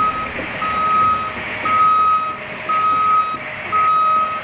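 Travel alarm of a Cat 6015B hydraulic mining excavator beeping: one steady high tone about once a second, each beep lasting most of a second, over constant machine noise.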